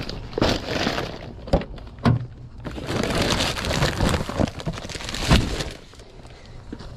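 Plastic bags crinkling and rustling as packs of meat are handled and packed into a tote bag, with a few sharp knocks as packs are set down.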